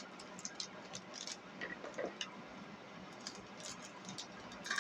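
Faint, scattered light clicks and taps of small objects being handled.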